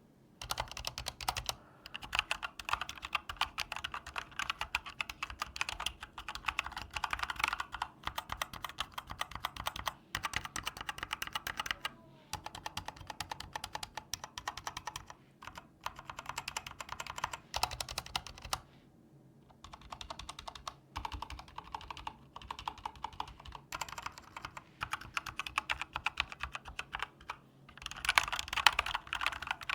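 Typing on an Endorfy Thock tenkeyless mechanical keyboard, recorded close with a mic beside it: fast, dense runs of key clacks broken by short pauses, the longest lasting about two seconds two-thirds of the way through.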